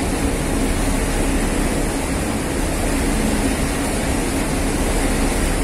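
Ship's engine running with a steady low hum under an even rush of wind and water noise on deck.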